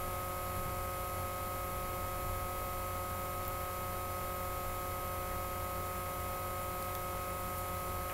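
Steady electrical hum made of several fixed tones, over a faint even hiss, with no other sound.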